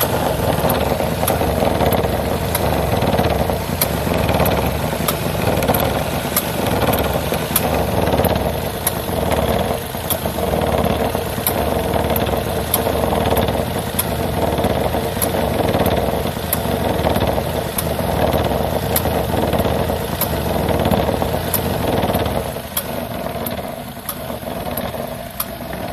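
Daihatsu Tanto L375S three-cylinder engine idling in the engine bay, with a regular clicking ('kachi-kachi') from the air-conditioning system, an abnormal noise. The running note drops quieter near the end.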